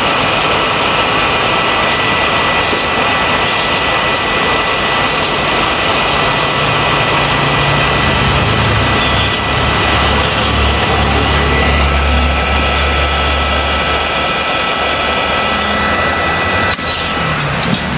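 Hot air rework station blowing steadily while heating the board to solder in a replacement IC: a constant rush of air with a faint high whine, and a deeper rumble underneath from about six seconds in until near the end.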